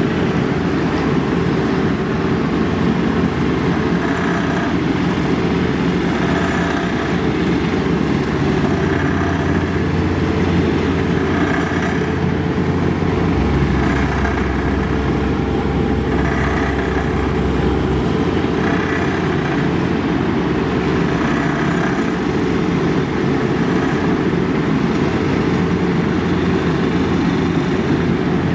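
Heavy diesel asphalt-paving machinery running steadily with a continuous low rumble, and a faint higher sound recurring about every two and a half seconds.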